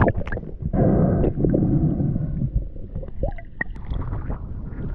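Water gurgling and sloshing close against the camera's microphone, over a steady low rumble, with a few sharp clicks.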